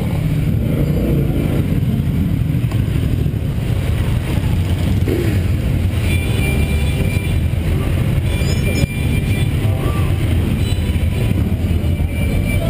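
Several motorcycle engines running together at low speed, a steady deep rumble from the camera bike and the bikes riding past it.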